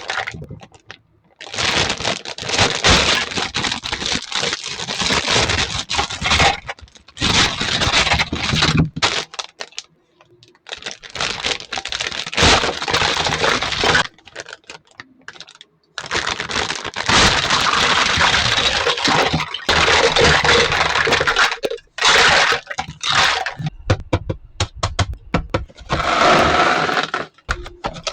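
Plastic packaging crackling and crinkling as it is handled and torn open, in long stretches of a few seconds broken by short pauses.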